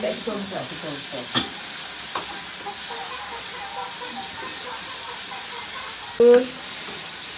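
Oil and gulai spice sizzling steadily in a wok while a ladle stirs noodles in a steel pot, with a few light clicks of utensils against the pans. About six seconds in there is one brief louder sound.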